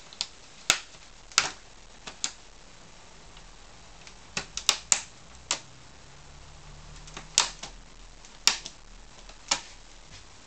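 Plastic snap clips of a Samsung NP300E7A laptop's casing clicking as the case is pried apart, about a dozen sharp clicks at irregular intervals, some in quick pairs.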